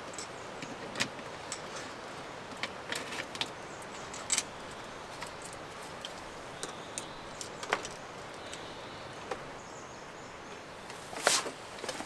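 Scattered light clicks and knocks, as of objects being handled, over a steady outdoor hiss, with a louder cluster of knocks near the end.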